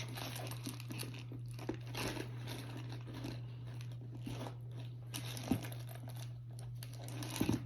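Packaging wrap rustling and crinkling in intermittent bursts as a new handbag and its pouch are handled and unwrapped, over a steady low hum.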